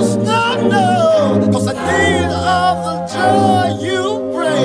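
Soundtrack music: a sung vocal line over sustained low chords that change every second or so.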